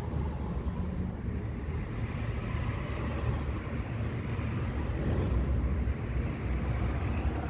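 2005 Nissan Altima four-cylinder engine idling steadily with only two of its four ignition coils connected, so only two cylinders are firing.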